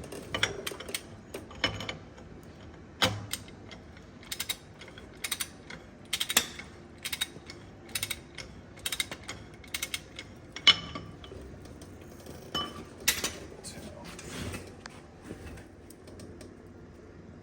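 Irregular metallic clicks and clinks of hand tools and steel parts being handled on a bus wheel hub, with one sharper clink about ten and a half seconds in; the clicks thin out toward the end.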